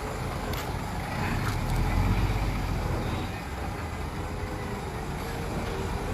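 A heavy vehicle's engine running steadily, a low rumble that swells briefly about two seconds in, with a few faint clicks over it.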